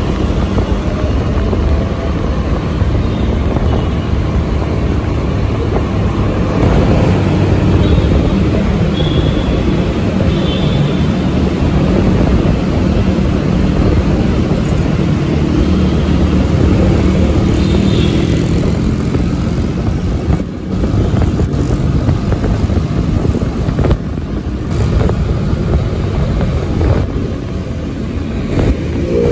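Motor vehicle running on the road: steady engine and road noise, with a few brief dips in loudness in the last third.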